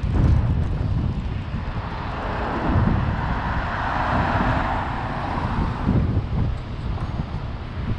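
Double-deck bus driving past close by, its engine and tyre noise swelling and fading over a few seconds, with wind buffeting the microphone throughout.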